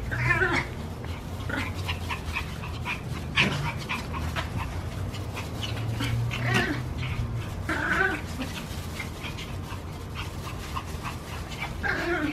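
Chihuahua-type puppy crying out in short, wavering bursts during rough play-fighting, a handful of times, with scuffling between the cries.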